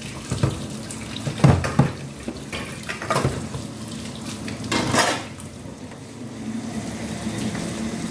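Tempeh and chili-garlic-shallot paste frying in oil in a pan, a steady sizzle, with a few knocks and clatters, the loudest about a second and a half in and about five seconds in.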